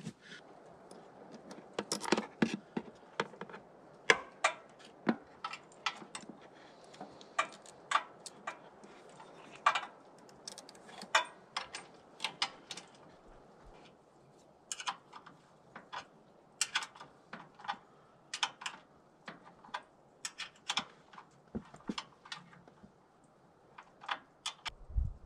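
Irregular small clicks and taps of electrical wiring connectors and cables being handled and connected at a small engine's wiring, scattered through with short pauses.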